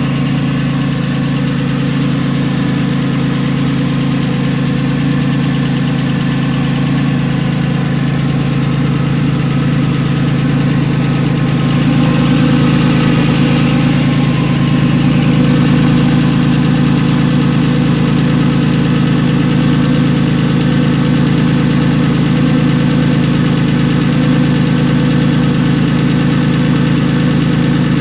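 Porsche 996's M96 flat-six engine running steadily at idle with a ticking noise. It gets slightly louder about twelve seconds in.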